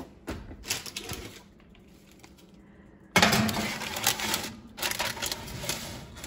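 Parchment-lined baking sheet slid onto a metal oven rack: a few light clicks at first, then from about three seconds in a sudden loud stretch of rattling and paper rustling that tapers off into smaller clicks and crinkles.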